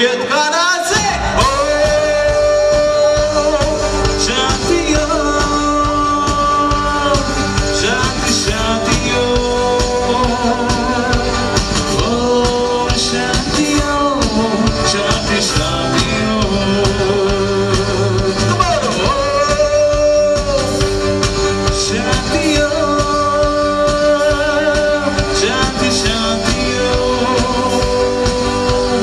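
Live rock band playing loudly through a PA: electric guitars, bass and keyboards, with a voice singing the melody over them.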